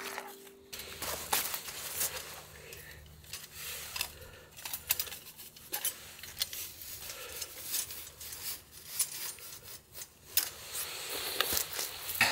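Small clinks, taps and rustles of camping gear being handled by hand, a light clatter of many short knocks. Background music fades out within the first second.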